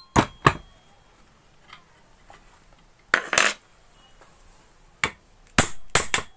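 Sharp metallic knocks and clinks as the metal body of a half-horsepower water pump motor is shifted and tapped on a workbench during reassembly. There are two knocks at the start, a quick cluster about three seconds in, and several more near the end.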